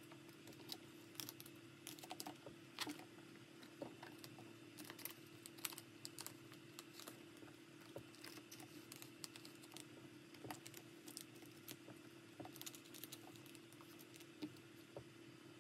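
Photocards being handled and slid into the clear plastic pocket sleeves of a ring binder: faint, irregular taps and crinkles of card on plastic. A faint steady hum runs underneath.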